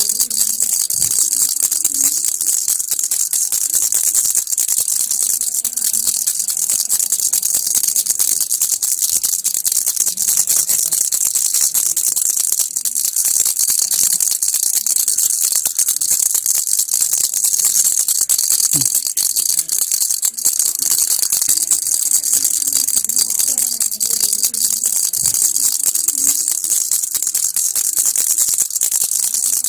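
Baby rattle (kilukki) shaken continuously, a fast, even, hissy rattling that never lets up.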